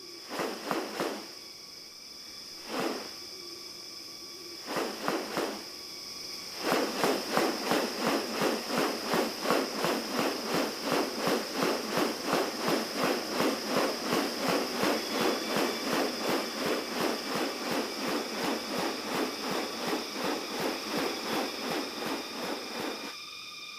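Rainforest sound: a steady high insect drone, with a few short separate calls in the first six seconds, then a call repeated rapidly and evenly, about three times a second, from about seven seconds in until shortly before the end.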